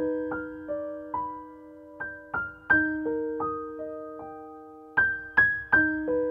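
Background music: a slow, gentle keyboard melody of single struck notes that ring and fade, with quick runs of three notes about three and five seconds in.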